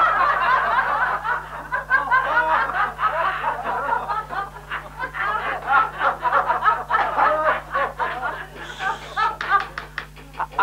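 A roomful of men and women laughing heartily at once, many laughs overlapping, thinning into separate chuckles near the end. A steady low hum runs underneath.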